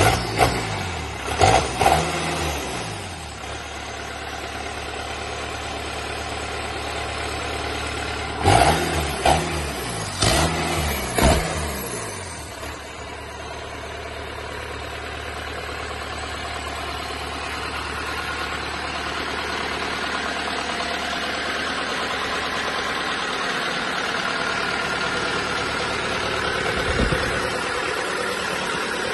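Kubota V3800 four-cylinder turbo diesel engine, freshly started on a test stand, running. It is revved in quick blips near the start and four more times about a third of the way through, then settles into a steady idle.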